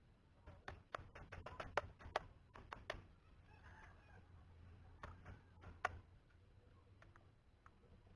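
Faint, irregular clicks and taps, a quick cluster in the first few seconds and a few more a little past the middle, over a low hum.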